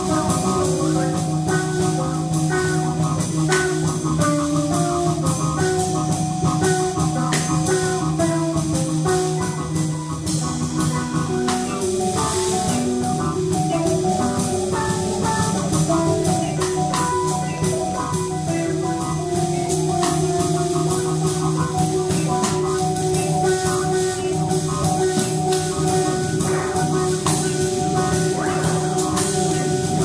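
Live post-jazz/experimental band improvising: a held low bass note under a melody of stepping pitched notes, with drums and cymbals struck throughout.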